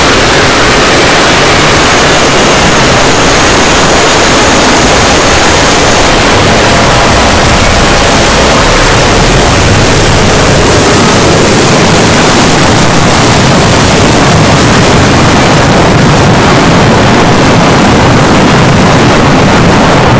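Jumpscare sound effect: an extremely loud, harsh, distorted wall of noise that holds steady at full blast.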